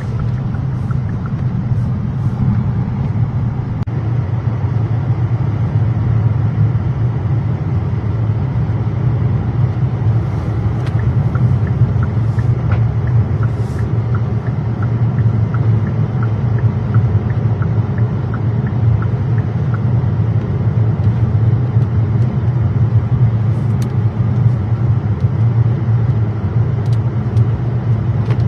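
Steady low rumble of a car's tyres and engine heard from inside the cabin while driving on a snow-covered highway. A faint regular ticking comes and goes in the middle.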